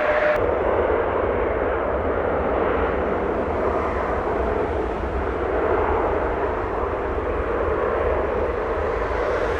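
Jet airliner's engines, a steady rushing noise with a strong low rumble, starting abruptly about half a second in.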